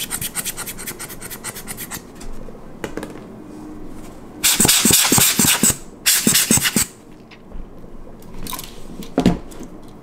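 A blower brush's bristles flicking quickly across a Nikon F3 focusing screen, then two loud rushes of air from its squeezed rubber bulb about halfway through, and a single small knock near the end.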